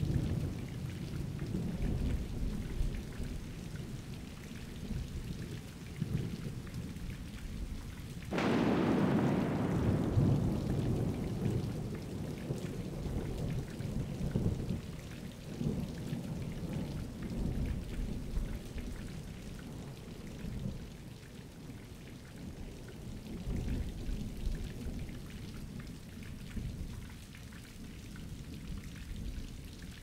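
Thunderstorm: steady rain under low thunder rumbling throughout, and a sharp thunderclap about eight seconds in that rumbles away over several seconds.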